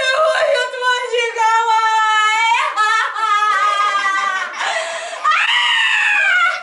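A woman's loud, high-pitched wordless wailing in long drawn-out notes that rise and fall. It breaks off briefly near the end, then comes back as one long cry that rises and then falls.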